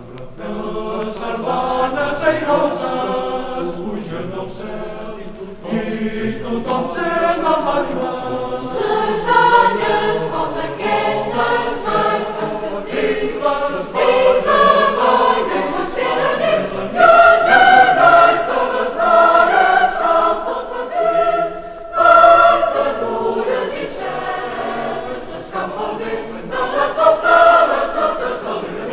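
A choir singing a sardana in Catalan, transferred from a 45 rpm vinyl single. The voices swell and fade from phrase to phrase.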